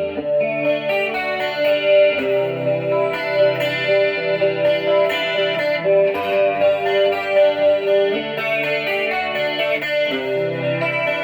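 Electric guitar played clean through a chorus effect on its DiMarzio Rainmaker neck pickup: picked notes and chords ringing one after another, heard through a phone's microphone.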